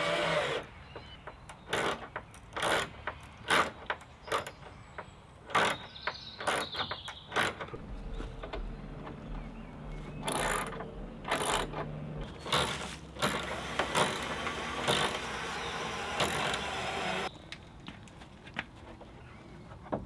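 Cordless drill fixing ash cladding boards to a timber frame: about a dozen short, sharp bursts spread irregularly, with a low hum for a few seconds in the middle.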